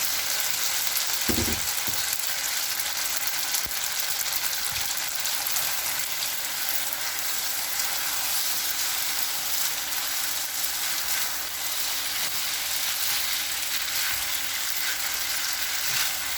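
Soy, oyster sauce and garlic sauce sizzling steadily in a hot pan, its burner just switched off, as cooked spaghetti noodles go in and are tossed. There is a soft thump about a second in and a few light knocks.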